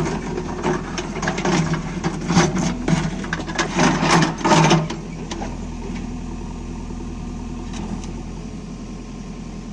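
JCB 3DX backhoe loader's diesel engine running steadily under work, with irregular clattering and scraping over the first five seconds, then the engine running on more evenly.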